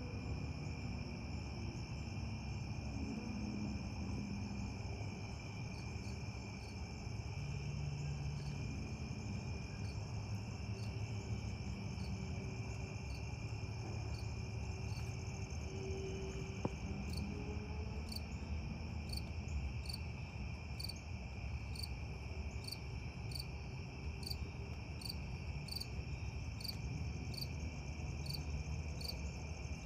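Evening chorus of crickets: a steady high-pitched trill, joined about halfway by regular chirps at roughly three every two seconds, over a low background rumble.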